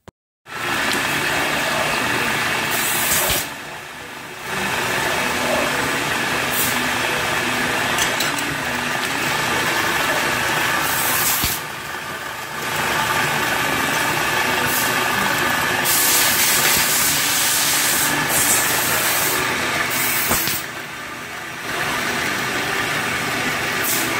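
Production lathe running and cutting bar stock held in a Hall collet chuck: a steady machine din that dips three times, with short bursts of hiss.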